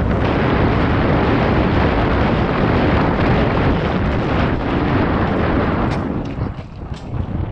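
Mountain bike descending a dirt downhill trail at speed: a loud, steady rush of wind buffeting the action camera's microphone mixed with tyre and bike rattle. Near the end the rush eases and a few sharp clicks come through.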